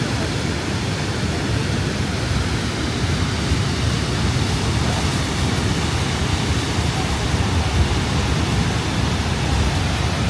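Steady, continuous rushing of Niagara Falls, a dense wash of falling water with a heavy low rumble.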